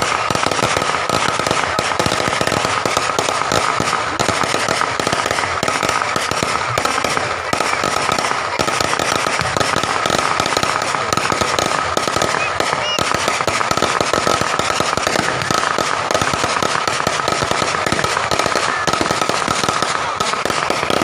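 Fireworks and firecrackers going off in a dense, continuous rapid crackle of pops, with a steady high tone running under it.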